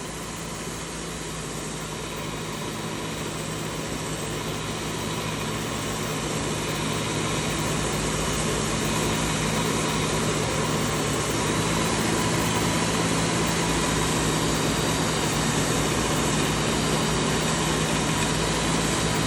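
Work Sharp Ken Onion belt sharpener running with a leather strop belt while a knife's bevel is stropped on it over the roller. A steady motor hum grows gradually louder.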